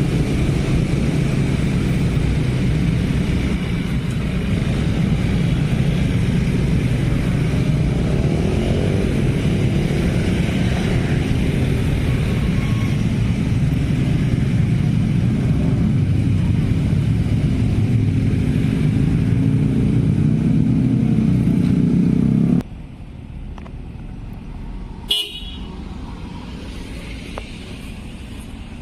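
Road traffic of motorcycles and cars running past in a steady, loud stream. It drops suddenly to a quieter level about three-quarters of the way in.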